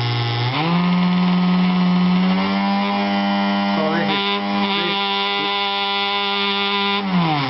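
Electric pump motor running with a steady whine. About half a second in, the whine rises sharply in pitch as the motor is sped up to 200 Hz drive frequency. It then holds steady and falls away near the end as the motor is slowed again.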